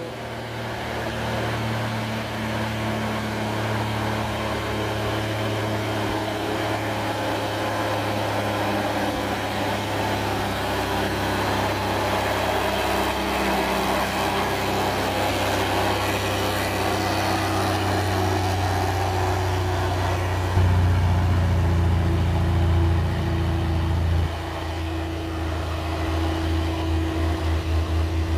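Diesel engine of a loaded Mitsubishi Fuso 6x2 truck pulling steadily uphill as it comes up to and past close by, then drawing away up the road. About two-thirds of the way in the engine note turns louder and lower for a few seconds, and near the end it takes on a fast pulsing beat.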